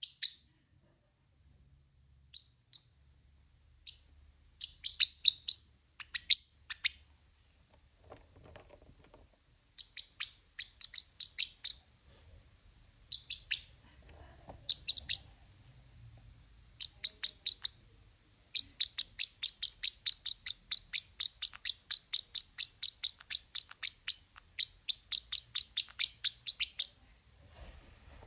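Small pet parrot chirping in runs of short, high-pitched chirps broken by pauses, ending in a long even run of about three to four chirps a second.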